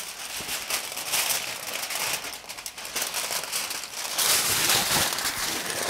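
Aluminium foil being folded and crimped by hand, crinkling and rustling, louder about four seconds in.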